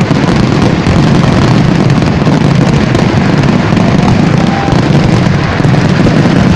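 Massed firecrackers of a Kerala temple fireworks display (vedikettu) going off in an unbroken barrage, the rapid bangs running together into one continuous, very loud rumble.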